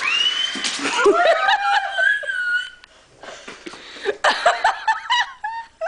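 Excited laughter and high-pitched squeals of delight, in two bursts with a short lull between.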